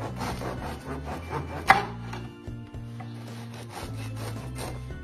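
Kitchen knife sawing back and forth through the crust and crumb of a baked casatiello on a wooden cutting board, in quick repeated strokes, with one sharp knock a little under two seconds in.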